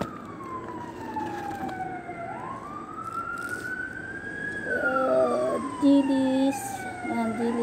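An emergency vehicle's wail siren, its pitch sliding slowly down, up, then down again, about five seconds per full sweep, starting to rise once more near the end.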